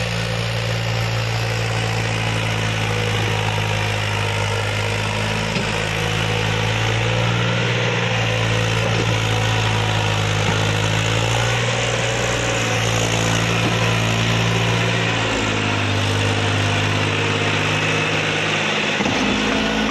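Eicher 333 three-cylinder diesel tractor engine running steadily under heavy load, hauling a fully loaded trailer up a dirt slope. The engine note shifts slightly in the last few seconds.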